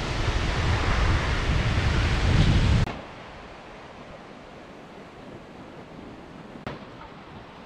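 Wind buffeting the microphone over the wash of breaking surf, a loud rumbling hiss that cuts off suddenly about three seconds in. After that only a much quieter, steady hiss of gentle surf remains, with one small click near the end.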